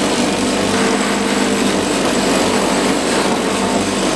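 Bench grinder running steadily with its wire wheel scouring the metal end of an umbrella pole pressed against it, cleaning the broken joint.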